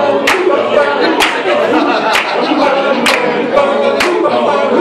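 All-male choir singing a cappella in several-part harmony, with a sharp percussive hit on the beat about once a second.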